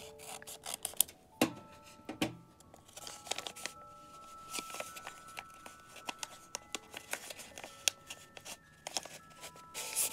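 Scissors snipping through a paper mailer envelope a few times in the first couple of seconds, then paper rustling and crackling as the envelope is opened and its folded card insert is pulled out and unfolded. Soft background music with held notes runs underneath.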